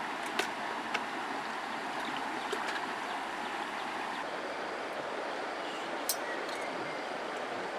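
Shallow river water flowing steadily, with a few short sharp clicks over it.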